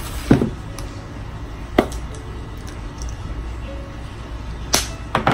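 Sharp clicks and taps from a blood glucose testing kit being handled: one near the start, one about two seconds in, and two close together near the end.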